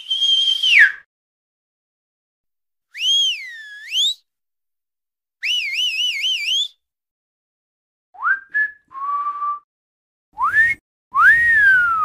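Human whistling: a string of short separate whistles with gaps between them. A high held note that drops at its end, a swoop down and back up, a warbling trill, quick rising chirps and a lower steady note, then a rising whistle and a longer one that rises and slides down near the end.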